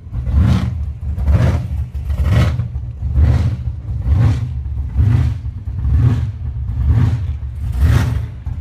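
Supercharged, methanol-fuelled hot-rod engine running at low speed, heard from inside the cab. It has a steady deep rumble with a surge about once a second.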